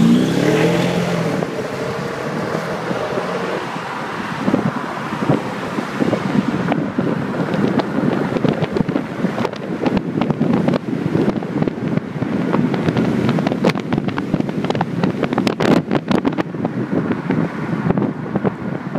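Mercedes-Benz CLS 63 AMG V8 pulling away under acceleration. Its note rises over the first second and holds for a few seconds. Then it gives way to wind rushing over the microphone, with gusty crackles.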